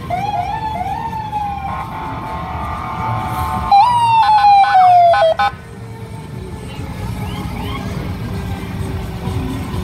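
Fire truck sirens: a few short rising whoops at first, then a louder siren that jumps up and slides slowly down before cutting off suddenly about halfway through. A steady low engine rumble runs underneath.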